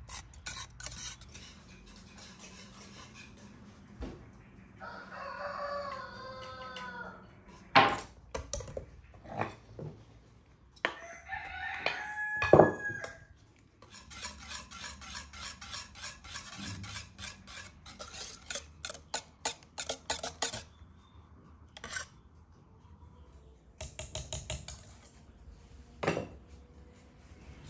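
Wire whisk beating a thin liquid in a stainless steel pot, the metal tines clattering against the pot in runs of quick strokes, with a few sharp knocks. A rooster crows twice, about five seconds in and again around twelve seconds.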